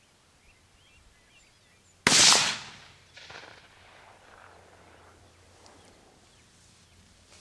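A single rifle shot about two seconds in, a sharp crack that dies away over most of a second. A fainter second report follows about a second later, with faint birdsong before the shot.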